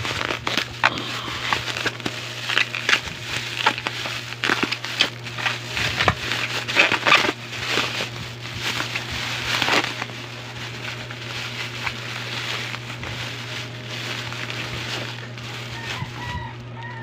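Packaging being crinkled and torn open by hand, dense crackling for the first ten seconds or so, then quieter rustling. A steady low hum runs underneath.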